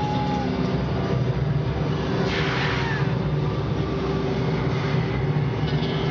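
A loud, steady low rumbling drone with a held tone through the arena's sound system as the concert opens, with a brief burst of crowd noise about two and a half seconds in.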